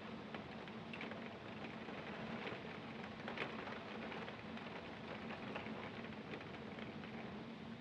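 Rain on a window pane heard from inside a room: a steady hiss of rain with many small, irregular ticks of drops striking the glass, one sharper tick about three and a half seconds in. A low, steady hum runs underneath.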